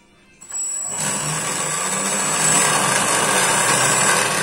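Homemade electric jet engine's motor spinning up about half a second in and then running steadily at speed: a loud rushing hum with a thin high-pitched whine over it.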